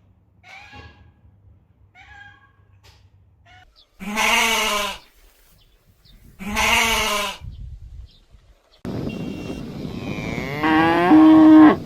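Farm-animal bleating: two loud, wavering calls about a second long, with fainter calls before them. Then comes a noisier stretch that ends in a louder drawn-out call.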